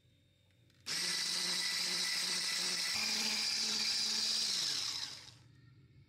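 Electric whisk beating a thick cream mixture in a glass bowl. The motor switches on abruptly about a second in and runs steadily with a whine, rising slightly in pitch about three seconds in. It then winds down and stops near the end.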